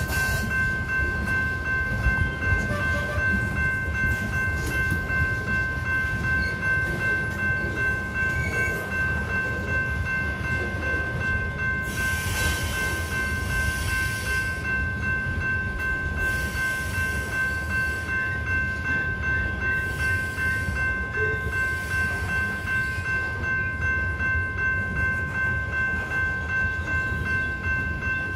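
Covered hopper cars of a grain train rolling slowly through a crossing, with a low, steady rumble of wheels on rail. Over it the crossing's General Signals type 2 electronic bell rings continuously. Two short bursts of hiss come about halfway through.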